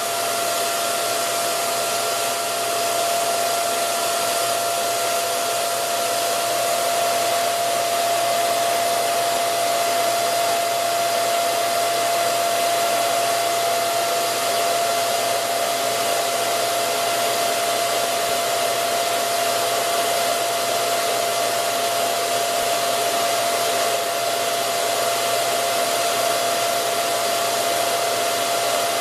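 Steady whir of an electric motor and fan running in a workshop, with a constant high whine over an even hiss and no change in speed.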